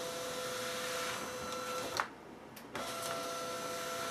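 Fujitsu ScanSnap S510 document scanner feeding and scanning paper: a steady motor whine that stops with a click about two seconds in, then starts again after a short pause.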